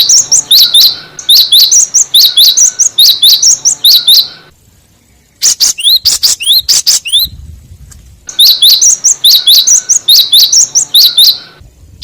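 Gelatik bird calls played as a lure recording: rows of sharp, rising high chips about four a second, broken by a short pause and a quicker burst of different notes midway.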